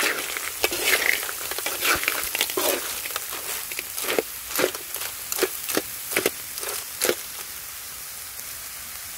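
A metal spoon stirs and scrapes a pan full of small freshwater clams (hến) frying in a large flat metal pan, and the shells clatter against each other and the metal over a steady sizzle. The clattering stops about seven seconds in, leaving only the sizzle.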